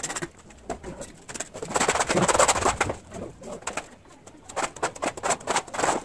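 A steel trowel scraping and working wet cement mortar on concrete, in a run of short gritty scrapes, with a louder rush of mortar being scooped and shifted about two seconds in.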